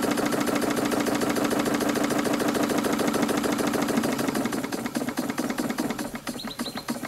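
Model triple-expansion marine engine running fast with a rapid, even beat of its strokes. About four to five seconds in it gets quieter and the beat slows as the engine is throttled down.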